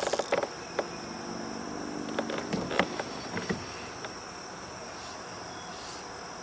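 Steady, high-pitched chorus of insects, with a few short knocks and clicks in the first four seconds.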